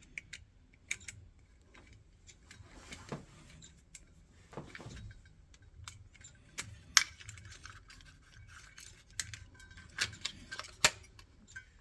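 Scattered small clicks and scrapes of metal and plastic parts being handled and unscrewed while a motorised heating valve's motor head is taken apart, with a sharper click about seven seconds in.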